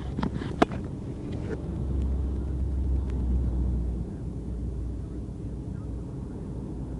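Low, steady rumble of idling vehicles and road traffic, a little stronger in the middle. A few sharp clicks in the first second, one louder just over half a second in.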